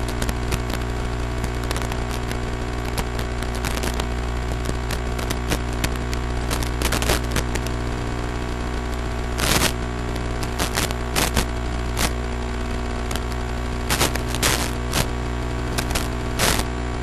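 Steady electronic hiss and buzzing hum from an analog FPV receiver's audio channel, broken by irregular sharp crackles: a burst about nine and a half seconds in and several more near the end.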